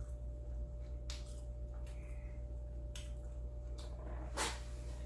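Close-up mouth sounds of someone chewing a meatball: a few soft, wet smacks and breaths at irregular intervals over a steady low hum.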